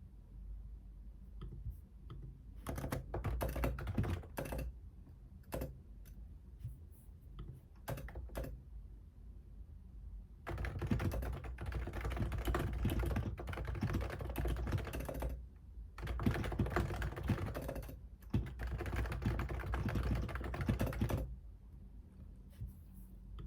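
Typing on a computer keyboard in bursts: a few short runs of keystrokes and scattered single clicks in the first half, then fast, continuous typing for several seconds at a time with two brief pauses, stopping a couple of seconds before the end.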